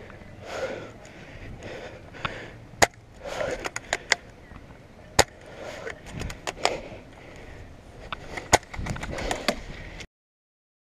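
About half a dozen sharp clacks over rustling movement noise on an airsoft field; the loudest come about five and eight and a half seconds in. The sound cuts off abruptly about ten seconds in.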